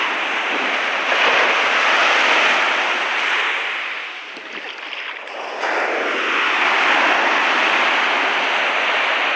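Lake Michigan surf breaking and washing up the sand in two long surges, with a lull between them about four seconds in. Wind buffets the microphone now and then.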